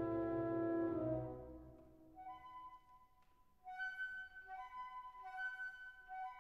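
Background music: a loud held chord dies away over the first two seconds, then a soft melody of long held notes begins, with a brief pause before it picks up again.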